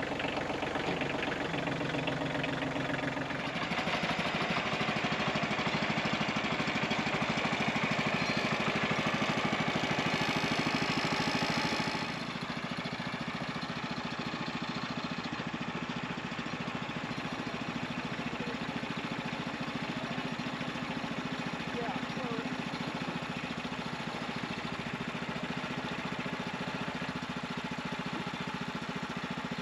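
Tractor engine running steadily while the front-end loader handles a log. About twelve seconds in the engine note drops to a quieter, even idle.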